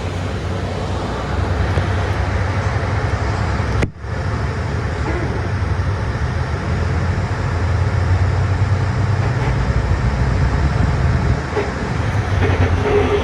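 Inside a moving city bus: steady engine drone and road noise. The sound cuts out for an instant about four seconds in.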